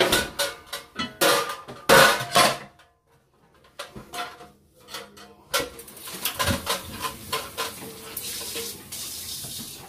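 Kitchenware being handled: metal baking trays and utensils clatter and clink, with a cluster of knocks in the first two and a half seconds. A steady high hiss follows in the second half, with a few light clicks over it.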